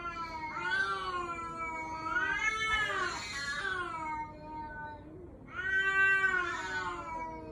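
A cat yowling in long, drawn-out cries that sound like a human baby crying: three calls that rise and fall in pitch, the last the loudest.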